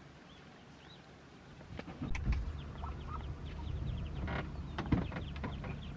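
Birds chirping: short, high peeps, sparse at first and coming thick and fast from about two seconds in, over a low rumble, with a few sharp clicks.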